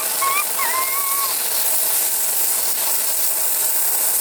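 Steady sizzling hiss of food frying in a pan, with a few short squeaky gliding chirps in the first second or so.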